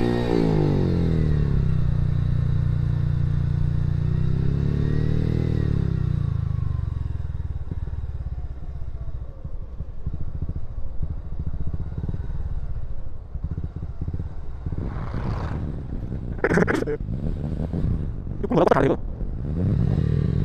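Motorcycle engine running under way. Its pitch rises and falls twice in the first six seconds as it is revved, then it settles into a rougher, uneven running with rattling. Several short, loud noisy bursts come near the end.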